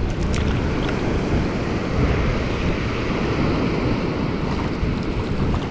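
Wind buffeting the microphone over the steady rush of river water pouring over a low dam.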